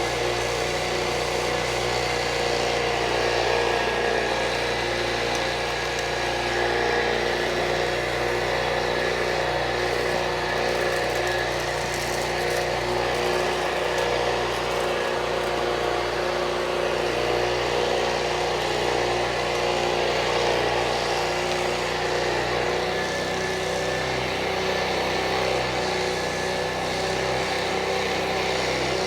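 Hoover Junior U1036 upright vacuum cleaner's 300-watt motor running steadily with a steady whine, drawing air through the attached tool kit during a suction test.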